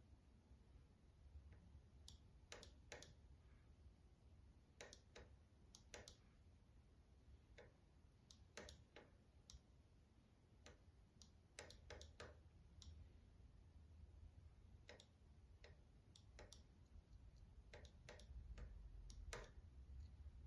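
Morse key being tapped by hand to send code, giving faint, irregular clicks, single and in quick pairs and short runs, as the key is pressed and released.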